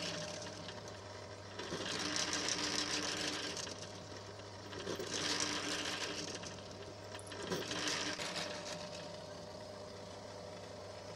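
Bench drill press running with a steady motor hum while its bit drills holes through a steel knife tang and wooden handle scales; the cutting noise swells three times, about two, five and eight seconds in, as the bit bites.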